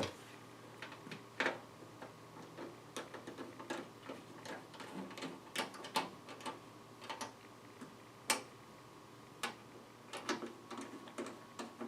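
Scattered light clicks and taps at an uneven pace, typical of keys being pressed on a computer keyboard, over a faint steady hum.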